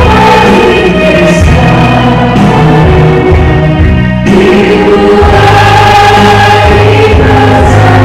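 Christian praise-and-worship song: a group of voices singing together over band accompaniment with a steady bass.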